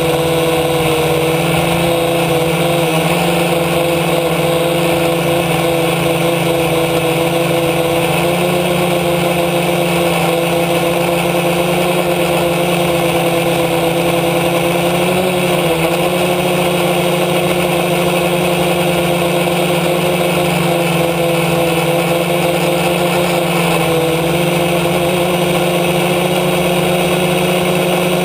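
Aerosky F450 quadcopter's four electric motors and propellers droning steadily, heard close from the on-board camera. The pitch of the drone dips and wobbles briefly a few times as the throttle is adjusted.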